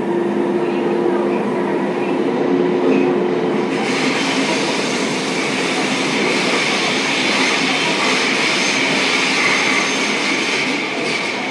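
Fukuoka City Subway 2000 series train running at speed, heard from inside the car: steady wheel and motor noise with a low hum. About four seconds in, a high wheel squeal comes in and holds for most of the rest.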